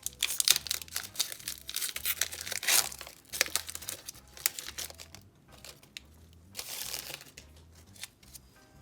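The wrapper of a 2020-21 Upper Deck Series 1 Hockey card pack being torn open and crinkled. The crackling is loudest and densest for the first three seconds or so, then comes in scattered bursts, with another short run about seven seconds in.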